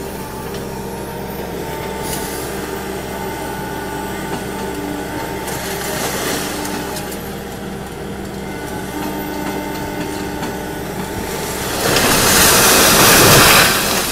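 A demolition excavator's diesel engine runs steadily under load while its jaw attachment works on the brick-and-concrete wall. About twelve seconds in, a loud rushing crash of collapsing masonry and rubble takes over for nearly two seconds.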